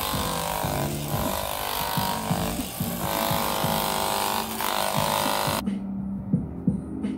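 Handheld hair dryer blowing, its rush of air dipping briefly a few times, then switched off suddenly about five and a half seconds in. Background music with a bass line plays underneath.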